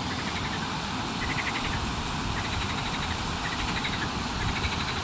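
Water rushing steadily over a river weir and through the rapids below it, with short runs of rapid chirps repeating several times through it.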